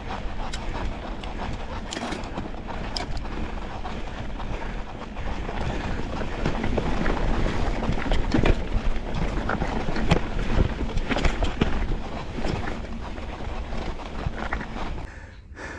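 Wind buffeting the microphone while a mountain bike rides over a rough trail, with many small clicks and knocks from the tyres and bike. The noise grows a little louder for a few seconds in the middle.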